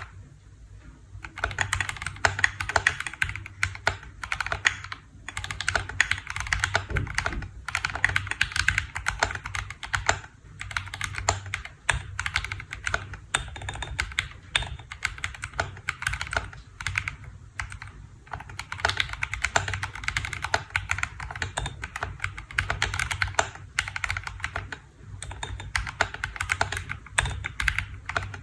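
Typing on a KBDfans D65 65% mechanical keyboard: a fast, continuous run of key presses, broken by a few short pauses.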